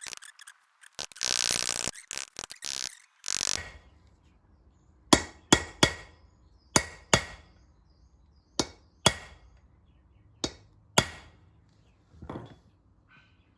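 Hammer striking rivets set through new brake linings on a truck's drum-brake shoe: about ten sharp, ringing metal strikes, many in quick pairs, after some short rasping noises in the first few seconds. A solid ring means the rivets are tight; a hollow one would mean they need more tightening.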